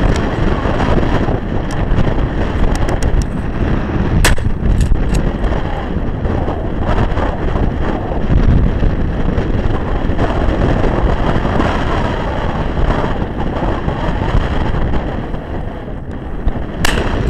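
Strong wind buffeting the microphone throughout. A Mossberg 500 12-gauge pump shotgun fires sharp blasts at clays, one about four seconds in and another near the end.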